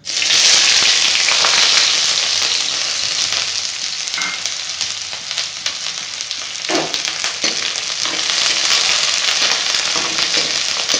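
Sliced onion frying in hot oil in an aluminium kadai, a loud sizzle that starts suddenly as the onion hits the oil, eases a little, then holds steady.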